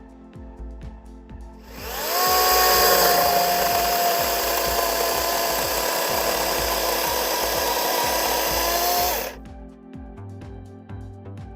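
A power drill runs for about seven and a half seconds at a steady speed. It spins up about two seconds in and stops abruptly near the end, most likely driving a long screw into the slab wood. Background music plays quietly underneath.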